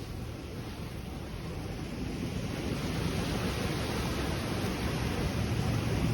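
Ocean surf on the shore: a steady wash of wave noise that swells gradually louder.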